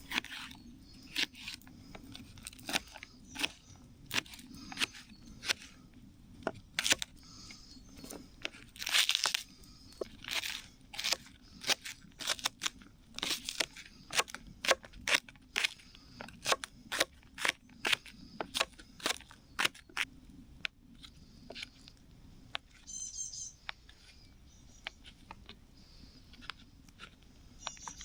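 Irregular sharp crunches and cracks, about one or two a second, thinning out after about twenty seconds.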